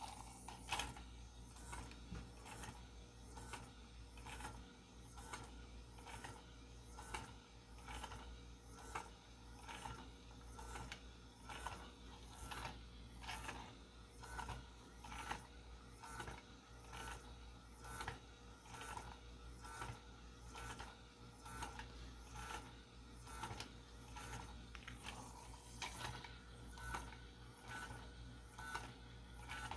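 A small 3D-printed plastic claw-foot walking robot, driven by an N20 gear motor, walking on a wooden desk: a steady, regular clicking of its plastic linkage and feet at about one and a half steps a second, over a faint motor whir.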